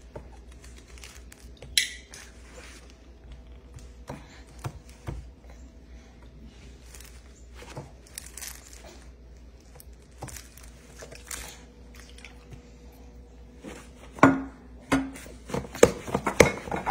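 Spoon and bottle clinking against a stainless steel mixing bowl: scattered light taps and clicks, with a sharp click about two seconds in and a run of louder clinks near the end as the spoon works in the bowl.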